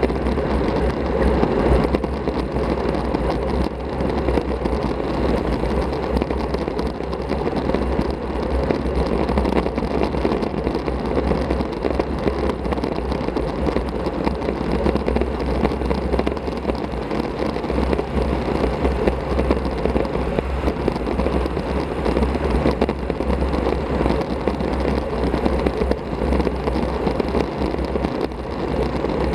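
Steady wind rush buffeting an action camera's microphone, over tyre and road noise, while riding a road bicycle (a 2013 Masi Speciale Strada) at speed.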